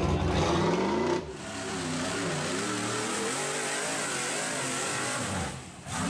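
Rock bouncer buggy's engine revving hard under load as it climbs a near-vertical dirt wall. The pitch climbs steadily for about a second, then after a sudden change it swings up and down repeatedly as the throttle is worked.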